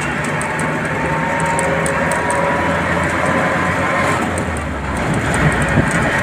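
A bus running along the road, heard from inside the cabin: steady engine and road noise, with a faint whine slowly rising in pitch over the first few seconds and light rattling.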